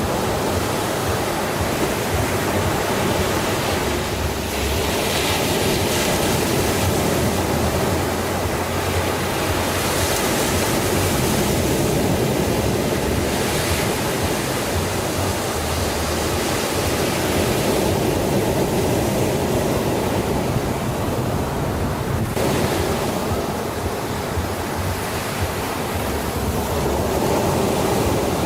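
Sea surf: waves breaking and washing in a continuous wash of noise, swelling and easing every few seconds.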